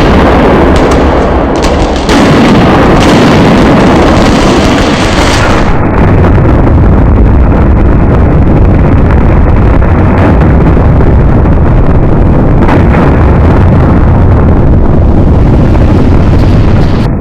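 Fireworks exploding, the blasts running together into one very loud, unbroken noise, with sharp cracks in the first couple of seconds; it cuts off suddenly at the end.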